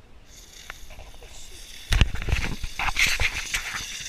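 A ground fountain firework going off. A thin hiss starts first; about two seconds in it flares with a sudden loud burst and keeps spraying sparks with a steady crackling hiss.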